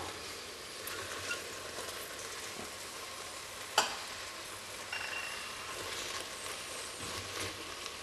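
Tomato, onion and spice soup base sizzling steadily in a stainless steel stockpot while cubes of raw pumpkin are tipped in, with one sharp knock about four seconds in.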